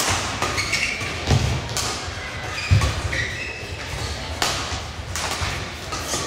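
Badminton rally in a large sports hall: sharp racket strikes on the shuttlecock every second or two, with heavy thuds of players' footfalls and lunges on the court mat.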